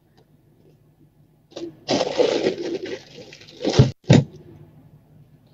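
Loud rustling, crackling noise for about two seconds, beginning about a second and a half in and ending with two short sharp knocks.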